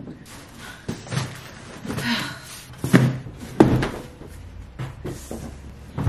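Cardboard shipping boxes being set down and stacked on top of one another: a series of knocks, about half a dozen, the loudest about three and a half seconds in.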